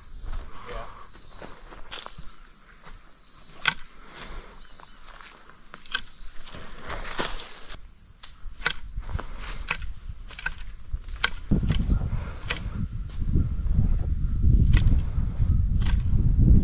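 A steady chirring of crickets with scattered sharp clicks and snaps of brush being trimmed by hand. About two-thirds of the way in, a louder low rustling of branches and footsteps starts, and the insect chirring drops out.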